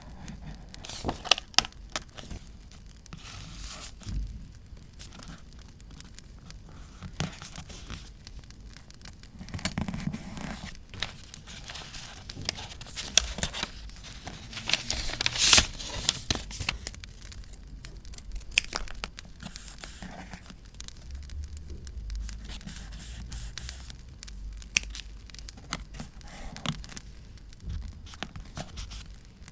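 Paper being handled, torn and crinkled for diary decorating, with many small taps and clicks. The loudest tear comes about halfway through. A campfire crackle track runs underneath.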